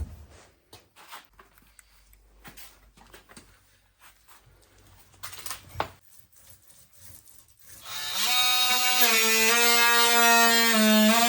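Light scattered taps and knocks, then about eight seconds in an electric power tool starts up, its pitch rising briefly as it spins up, and runs with a steady, loud buzzing whine.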